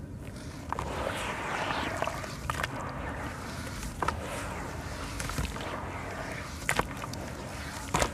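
Charcoal sand-cement mix crumbled and kneaded by hand in a tub of water: crumbs trickling and splashing into the water, then wet squelching and sloshing of the mud, with a few sharp crackles.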